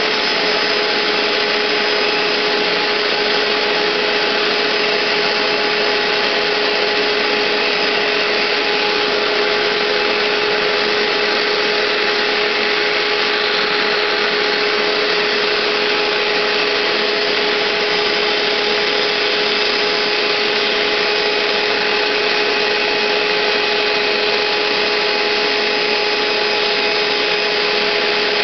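Hoover SteamVac Gold carpet cleaner's 12-amp motor running, a steady whine over a rushing suction noise.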